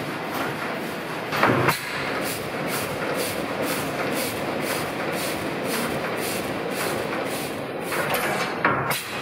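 Old Tangye stationary petroleum engine running steadily, a regular beat of about two strokes a second, with louder bursts about a second and a half in and twice near the end.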